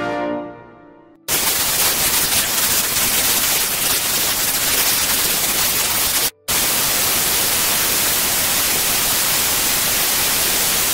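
Closing music fading out in the first second, then loud, even television static hiss, cutting out for a split second about six seconds in and then continuing.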